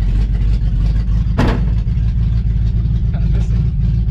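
AMC 290 V8 engine running steadily at idle, a low rumble heard from inside the car's cabin. A brief clatter cuts across it about a second and a half in.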